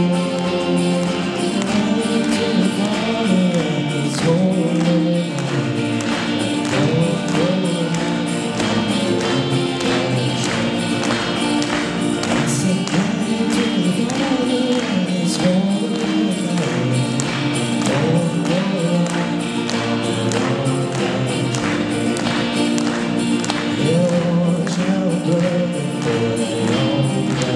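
Live band music: a slow country song played on electric bass, acoustic and electric guitars and a drum kit, with a steady drum beat and a wavering melody line over it, in an instrumental stretch between sung verses.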